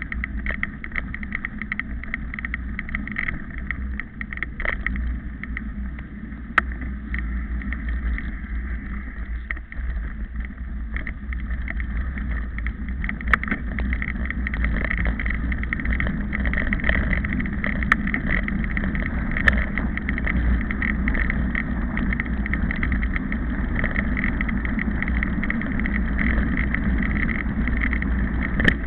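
Steady wind buffeting and low rumble on a small moving camera's microphone, with a few sharp handling clicks scattered through.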